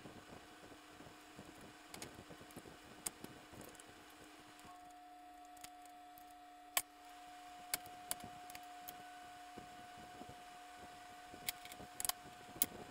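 Faint, scattered light clicks and taps of parts being handled and fitted in a Wheel Horse 8-speed transaxle gear case, over a steady hum.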